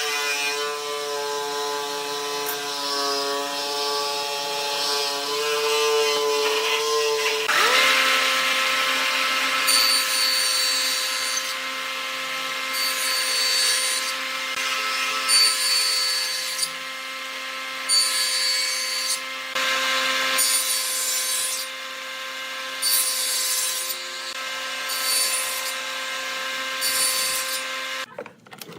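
Electric power tool cutting or sanding wood: a steady motor whine whose pitch changes about a quarter of the way in and then holds, with a rasping cutting noise that comes and goes in strokes about every second and a half. The tool cuts out briefly just before the end.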